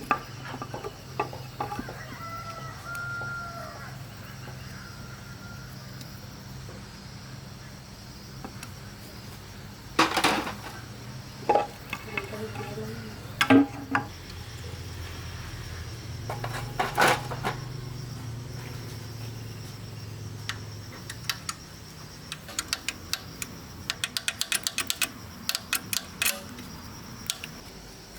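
A rooster crows a few seconds in. Later come several hard knocks and clanks, then a quick run of light taps near the end, like hand tools working on metal parts.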